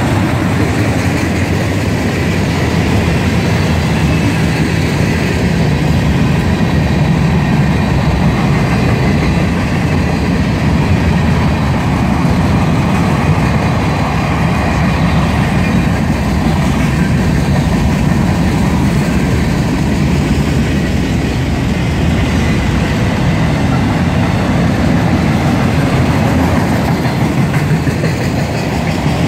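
A freight train's cars, tank cars and then autoracks, rolling past close by: a steady rumble of steel wheels on rail that holds even throughout.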